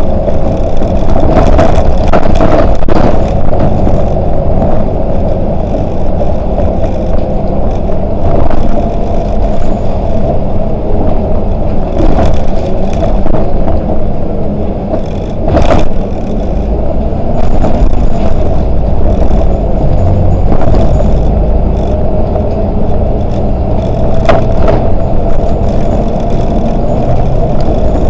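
Volvo 8900LE 6x2 city bus driving: steady engine and road noise with a constant whine, and sharp knocks and rattles now and then, a few seconds apart. The low rumble grows about two-thirds of the way through.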